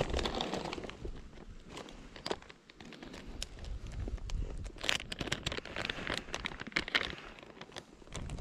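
A plastic soft-bait lure packet crinkling and rustling as it is handled and opened, with scattered small clicks and crackles.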